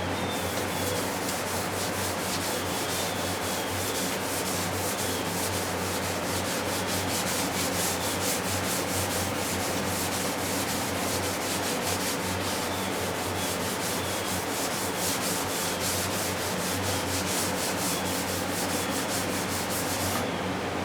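Hand-sanding automotive sealer with 320-grit sandpaper wrapped on a cut paint stick used as a sanding block: quick, light, even back-and-forth strokes that stop near the end, knocking down paint runs in the sealer.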